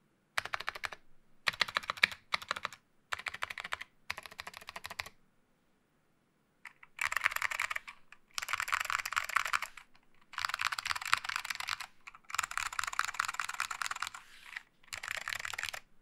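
Mechanical keyboard with SKCM Orange Alps switches on an aluminium plate, fitted with Apple AEK keycaps, being typed on: short runs of keystrokes at first, then after a pause about six seconds in, longer and faster runs.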